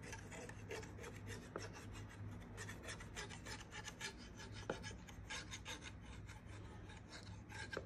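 A knife blade scraping around the inside wall of a ceramic ramekin, a quick run of faint short scrapes, loosening a crème caramel from its sides before it is turned out.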